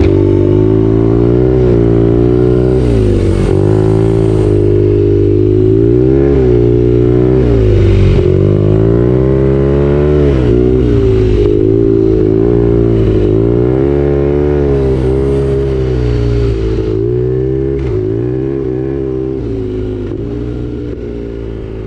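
BMW R nineT Urban GS's boxer twin engine running on the move, revs climbing and dropping over and over with the throttle. The sound fades out near the end.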